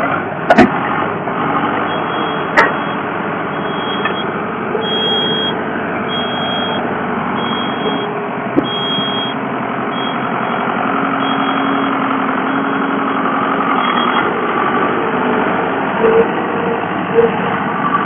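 Mini skid steer loader's engine running steadily, with its backup alarm beeping about once a second for much of the time and a few sharp knocks.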